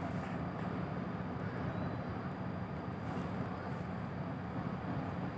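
Ship's engines running as the vessel readies to leave the quay, a steady low hum.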